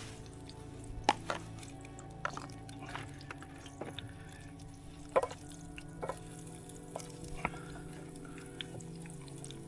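Irregular rain drips tapping, a sharp drop every half second to second, over a steady low hum.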